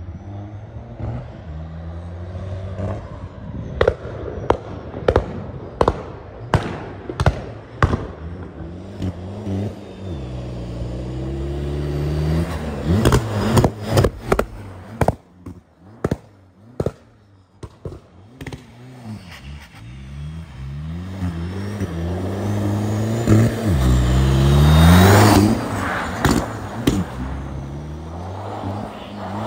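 A TDI turbodiesel car tuned for pops and bangs, revving up and down with strings of sharp exhaust bangs: about eight between 4 and 8 seconds in and another cluster around 12 to 15 seconds. The engine then revs hard under acceleration, loudest about 25 seconds in, and fades as the car drives away.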